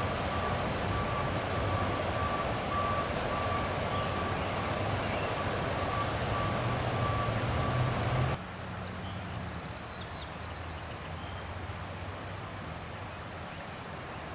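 Steady outdoor rushing noise with a reversing alarm beeping at an even pace. It cuts off about eight seconds in, and a quieter background follows with a low hum and a few faint high chirps.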